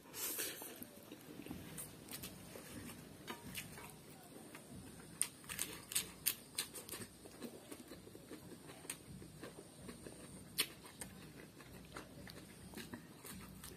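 A person eating: a slurp of noodles in the first second, then close-up chewing with many short crisp crunches, densest about five to seven seconds in, as fresh lettuce leaves are bitten and chewed.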